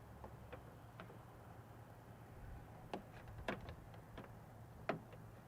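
A few sparse light clicks and taps from handling the bug guard against the hood, over a faint low hum.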